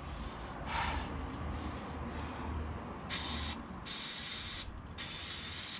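Aerosol can of brake cleaner spraying in three short hissing bursts in the second half, after a faint brief spray about a second in, cleaning the brake caliper carrier where the pads sit.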